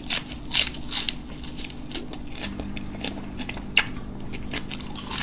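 Close-miked chewing of a bite of fresh green onion: irregular crisp crunches and wet mouth clicks, one sharper crunch a little before the end.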